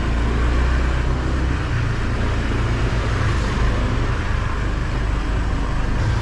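Motorbike engine running steadily at low speed under a continuous low rumble of wind on the camera microphone.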